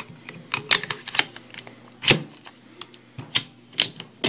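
Beretta PX4 Storm Compact 9mm pistol being put back together by hand: a string of sharp clicks and clacks as its parts go back into place, the loudest about two seconds in.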